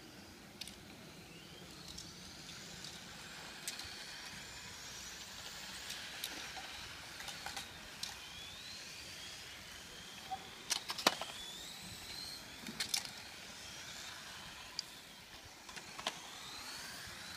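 Radio-controlled cars lapping a track, their motors giving faint high whines that rise and fall in pitch as they accelerate and brake, several overlapping. A few sharp clicks stand out over the middle part and near the end.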